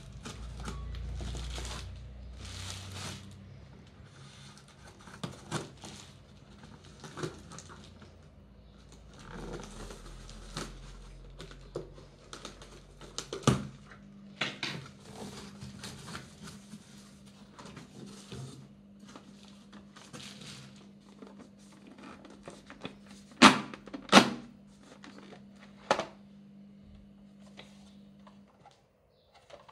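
Scissors cutting packing tape on a cardboard box, then cardboard flaps and packaging rustling and scraping as the box is opened, with scattered clicks. Two sharp knocks, the loudest sounds, come about two-thirds of the way through.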